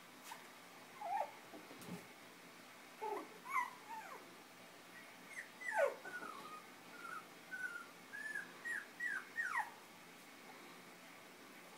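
Five-week-old Chinese Crested puppies whimpering as they play-fight: a string of short whines and squeaks, most falling in pitch, coming in a quick run near the end.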